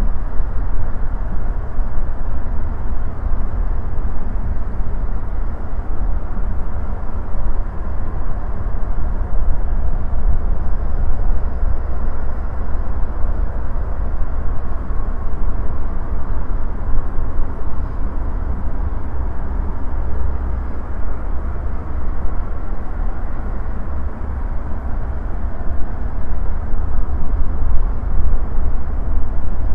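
Wind buffeting the microphone over steady airport background noise: a deep, uneven rumble with a faint, steady high whine.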